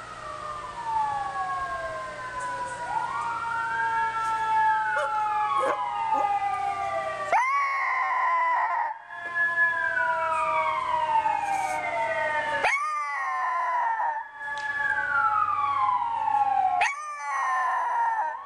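Emergency vehicle sirens wailing, rising and falling over and over, with a small pug-chihuahua mix dog howling along in three bursts.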